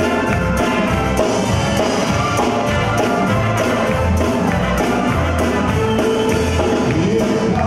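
Live rock band playing, electric and acoustic guitars over a steady beat.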